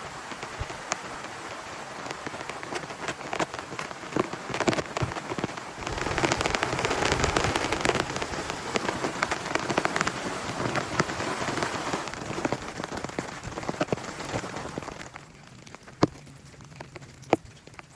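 Heavy rain falling, with many individual drops striking close by. It grows heavier about six seconds in, eases off after about fifteen seconds, and two loud single drop hits follow near the end.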